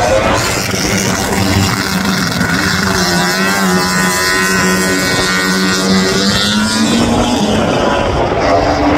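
Racing motorcycle engines at high revs on a circuit, loud and continuous, the engine note rising and falling as bikes accelerate and pass.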